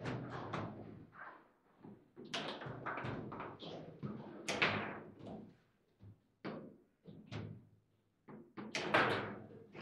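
Foosball table in play: the ball cracking off the players and the table walls, and rods knocking and slamming, in a string of sharp, irregular hits. The loudest hits come about halfway through and near the end.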